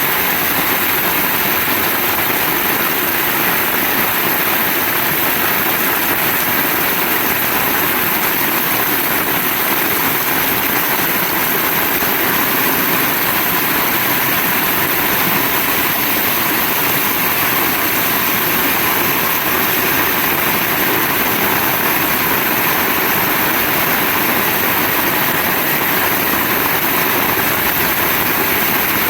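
Heavy rain pouring steadily, an even hiss with no let-up.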